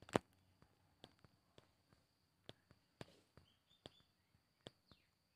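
Near silence: low background hiss with scattered faint clicks and ticks, one sharper click a fraction of a second in.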